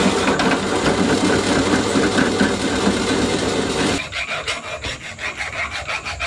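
Drill press running as its bit drills through steel angle iron. About four seconds in this gives way to quieter rhythmic scraping strokes of metal being worked by hand, like a file on steel.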